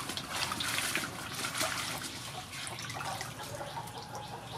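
Water splashing and trickling in a large aluminium basin as a bunch of lemongrass stalks is rubbed and swished clean by hand, then dripping as the stalks are lifted out near the end.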